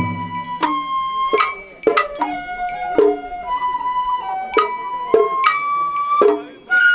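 Festival float hayashi music: a bamboo flute plays a held, stepping melody over sharp metallic strikes about twice a second, with low drumming that stops within the first second.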